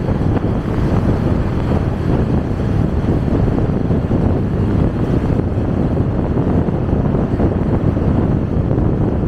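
Steady wind rumble on the microphone of a moving motorcycle taxi, with the motorcycle's engine and road noise under it.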